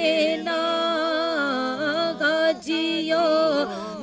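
A woman singing a naat unaccompanied into a microphone, drawing out a syllable in long notes with wavering turns of pitch.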